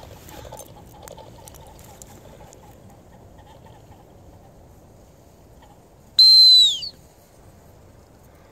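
A gundog handler's whistle blown once about six seconds in: one loud, short, high note that holds steady and then drops in pitch as it ends.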